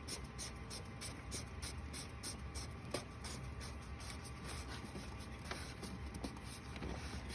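Faint hand-handling noises of a plastic oil filter cap and cartridge being fitted and screwed onto the filter housing: light scraping and rubbing with a small click about three seconds in.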